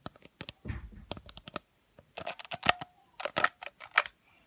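Hard plastic toys clicking and clattering against each other as they are handled, in quick clusters of sharp clicks, with a dull knock about a second in.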